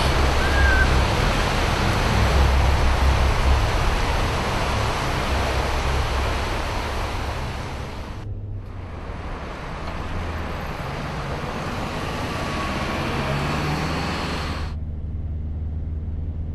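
Steady rushing outdoor noise with a heavy low rumble, broken by a short drop about eight seconds in. Near the end the hiss falls away, leaving only the low rumble of a van's cabin on the road.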